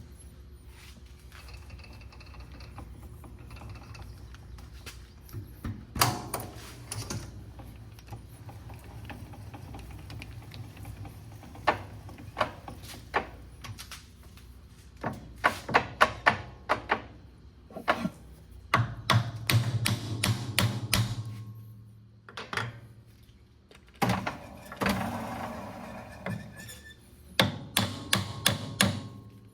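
Irregular knocks and thunks on metal, singly at first and then in quick clusters in the second half, as the cut-apart PTO yoke pieces are worked loose from each other. A low steady hum runs underneath for the first two-thirds.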